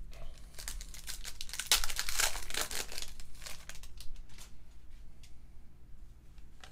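Foil wrapper of a Topps WWE Undisputed trading-card pack crinkling and tearing as it is ripped open, loudest in the first half, then a few faint rustles as the cards are handled.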